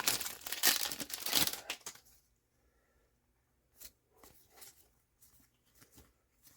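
A trading-card booster pack wrapper being torn and crinkled open for about two seconds, followed by a few faint clicks and taps of cards being handled.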